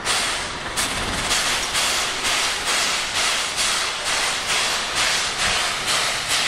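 Steam locomotive 8630 on a turntable giving off a rhythmic hiss of steam, a regular puff about twice a second.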